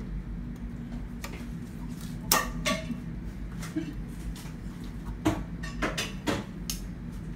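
Sharp metallic clicks and clinks, about six in all, as a hex key works the chainring bolts on a bicycle crankset, over a steady low hum.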